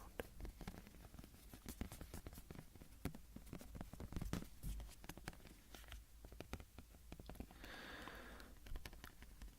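Soft, irregular tapping and scratching on a small handheld object, with a brief breathy hiss about eight seconds in.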